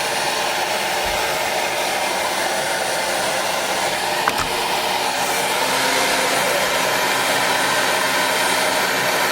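Handheld hair dryer blowing steadily, a constant rushing of air with a faint motor hum.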